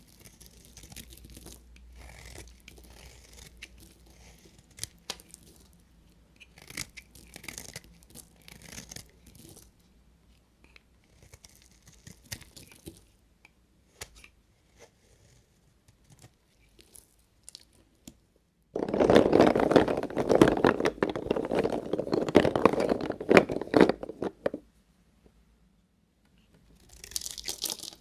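A knife cutting through bars of soap with crackly, crunching scraping. Light scraping and scattered clicks come first, then a loud stretch of dense crunching begins about two-thirds of the way in and lasts about five seconds.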